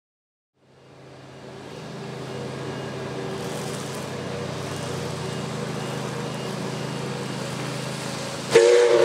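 A steady low rumble of the approaching train fades in, then near the end the NSW 59 class steam locomotive 5917 sounds its whistle in a loud, sudden chord with a hiss of steam.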